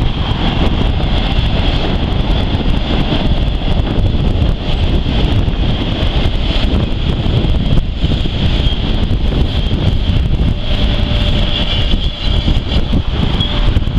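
Double-stack intermodal freight cars rolling past: a steady rumble of steel wheels on rail, with a high steady squeal over it.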